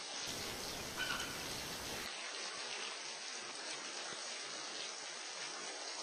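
Steady hiss of running water from a bush waterfall, with one short bird chirp about a second in.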